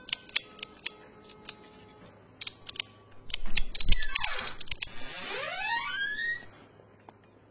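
Computer keyboard typing, a run of quick key clicks over the first couple of seconds. About three seconds in comes a loud whoosh with a low thud, sweeping down and then back up in pitch and stopping near the end.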